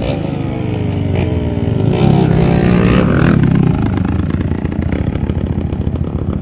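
Dirt bike and quad ATV engines passing close by. An engine revs up about two seconds in and is loudest for a second or so, then drops back to a quicker, even idle-like running as the dirt bike slows and pulls up.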